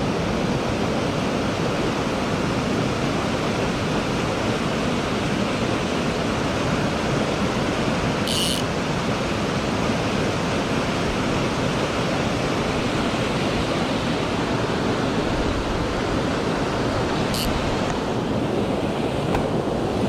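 Mountain stream water rushing over rocks, a loud steady wash. Two short, high hisses cut in briefly, about nine seconds apart.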